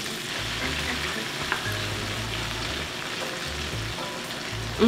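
Battered oyster mushroom pieces sizzling steadily in hot oil in an electric deep fryer. One small click about a second and a half in.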